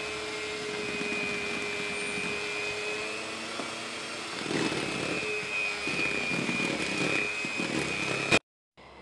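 Hand-held electric mixer running steadily with a whine, its beaters whisking cake batter as flour is worked in; the sound turns rougher about halfway through and cuts off suddenly near the end.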